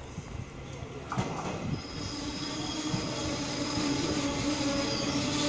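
An EMU800 electric multiple-unit train approaching along a station platform, getting steadily louder. A steady high whine builds from about two seconds in, over the rumble of wheels on rail.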